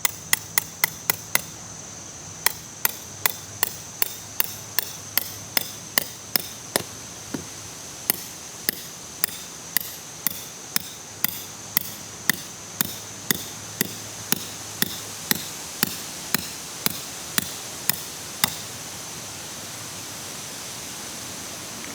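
Hammer blows driving a tent stake into the ground, sharp strikes about two a second, with a short pause around seven seconds in. The blows stop a few seconds before the end.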